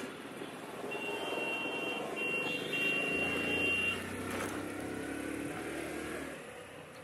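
Street traffic with a motor vehicle passing close, loudest about halfway through. A high, steady electronic beeping tone sounds in three short stretches over the first few seconds.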